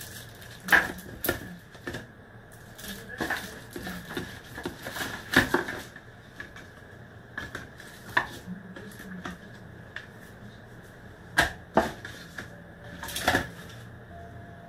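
Irregular sharp clicks and taps, about a dozen, from small hard parts and tools being handled on a workbench during a phone repair. A faint steady high tone and a low hum run underneath.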